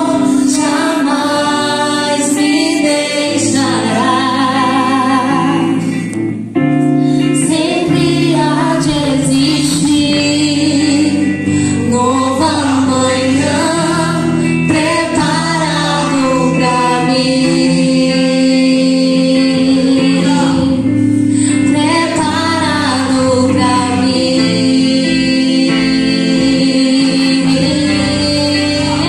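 A woman singing a gospel worship song through a microphone and PA, with vibrato on held notes, backed by amplified electric guitar and sustained low accompaniment.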